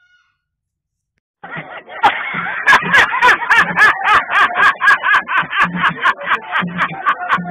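Silence for about a second and a half, then a man's loud, hysterical laughter, rapid and repeated, in a steady rhythm of roughly three cackles a second.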